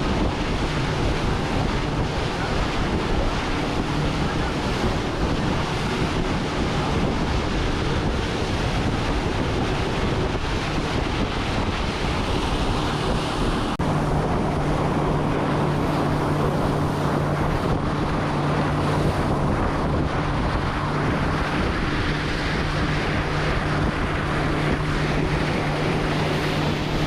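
A boat's engine runs steadily under heavy wind buffeting on the microphone and water rushing past the hull as the boat crosses choppy, bumpy water. The engine note shifts slightly and grows steadier about halfway through.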